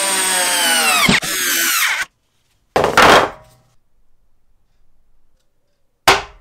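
Power drill driving steel screws through a metal leg-mounting plate into wood; the motor's pitch drops each time a screw bites and seats, and it cuts off about two seconds in. A heavy thunk follows about a second later, and near the end a sharp knock as a tin of finishing oil is set down on a table.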